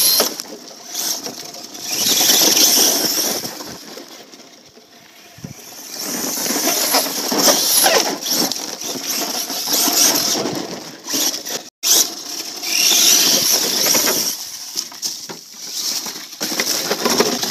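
Brushless electric motor (Tekin Pro-4 4000kv) of a radio-controlled monster truck whining in repeated bursts of throttle, with tyres scrabbling and spraying dirt and gravel.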